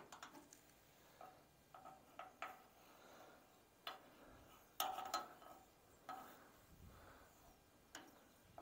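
Faint, scattered clicks and taps of a marker and hand working against the underside of a metal toolbox and trailer frame while marking mounting holes, the loudest about five seconds in.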